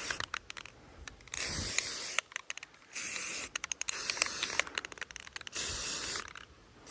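Aerosol spray-paint can hissing in about five short bursts as a light first coat of tan goes on, with small sharp clicks in the gaps between bursts.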